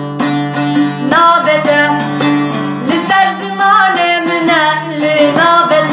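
A young woman sings a Kurdish song, accompanying herself on a plucked acoustic guitar. The guitar plays alone for about the first second before her voice comes in.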